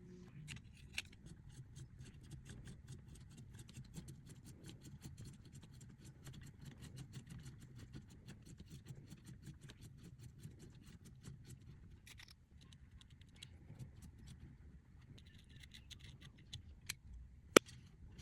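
A quick, even run of small sharp clicks, about four a second, for about eleven seconds, then scattered clicks and one louder sharp click near the end.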